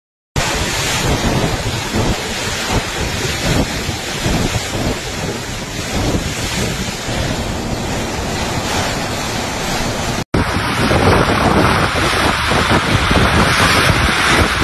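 Typhoon wind and heavy rain, gusting hard against the microphone. The sound drops out briefly about ten seconds in, and a second, slightly louder recording of the storm follows.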